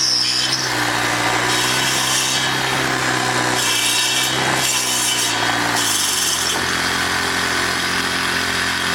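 Small four-stroke engine of a Troy-Bilt sidewalk edger running a homemade stump grinder, its carbide-tipped saw blades grinding into a green cedar stump. Three rasping surges of chip noise come as the blades bite, and the engine note drops about six seconds in.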